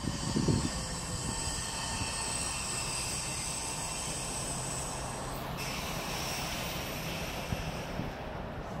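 Trolleybus running by, with a steady high-pitched whine over the rumble of the road; the whine shifts a little past halfway.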